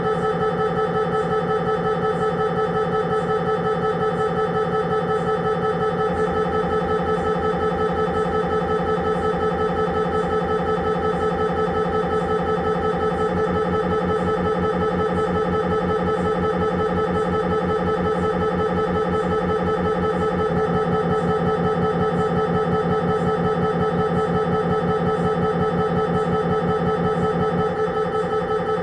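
Siemens Magnetom Avanto 1.5 T MRI scanner's gradient coils buzzing through an imaging sequence. The buzz is a steady, rapidly pulsing drone on several pitches at once, and its pattern shifts slightly about every seven seconds.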